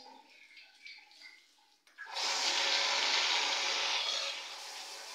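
Water gushing from a chrome wall-mounted lever tap beside a squat toilet pan and splashing over a hand into the pan. It starts suddenly about two seconds in, runs at full flow for about two seconds, then weakens.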